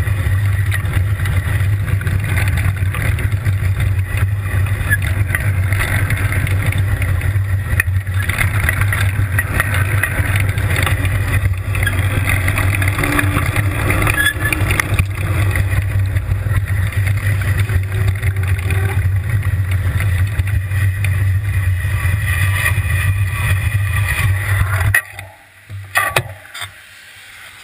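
Wind rushing over the camera microphone and tyres hissing on wet asphalt as a tricycle rolls fast downhill. The noise cuts off suddenly about 25 seconds in as the trike stops, followed by a few clicks.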